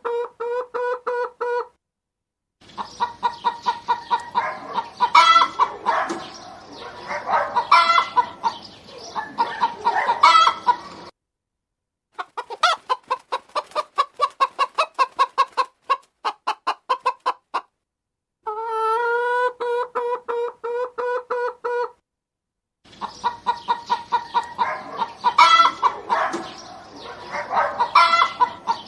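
Domestic hens clucking in bursts: a drawn-out pulsed call, then busy overlapping clucks, then a run of quick short clucks. The bursts are separated by brief silences, and the pattern repeats.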